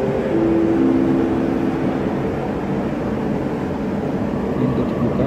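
KRL electric commuter train running, heard from inside the carriage as a steady rumble. Over the first two seconds a motor whine steps down in pitch.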